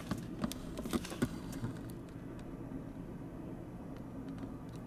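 The last cars of a double-stack container freight train rolling away on the rails: a steady low rumble with a few sharp clicks in the first two seconds, a little fainter after about two seconds.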